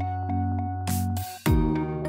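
Background music: sustained chords over a steady bass line, with a percussive hit about a second in and a change of chord about halfway through.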